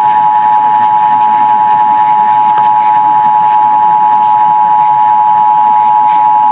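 Emergency Alert System two-tone attention signal, held steady through a Required Monthly Test and heard over AM radio with static hiss beneath it.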